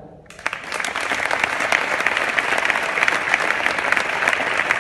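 Audience applauding: many hands clapping densely and steadily, breaking out suddenly just after the start.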